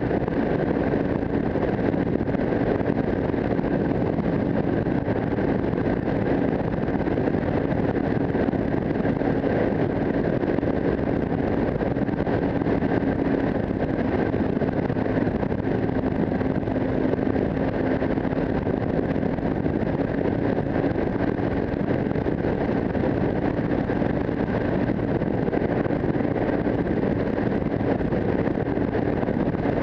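Single-cylinder engine of an AKT 250 Adventour (Zongshen RX3) motorcycle running at a steady cruising speed, its note holding an even pitch, under a constant rush of wind on the microphone.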